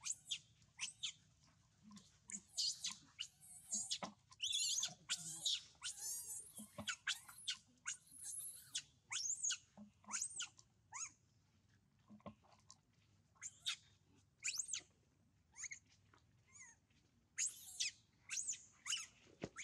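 Young macaque monkeys giving many short, high-pitched squeals and screeches, some rising and falling in pitch. The calls come in a dense run a couple of seconds in, thin out in the middle, and bunch up again near the end.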